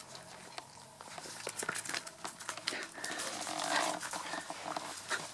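Six-week-old puppies snuffling and shuffling on a fabric blanket while being petted: soft rustling with many small clicks, the rustling swelling briefly past the middle.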